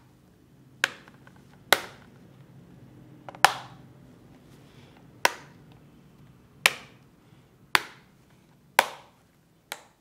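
Plastic retaining clips of an ASUS Vivobook Go 12 laptop's bottom cover snapping into place one by one as the cover is pressed down around its edge: about eight sharp clicks, roughly one a second.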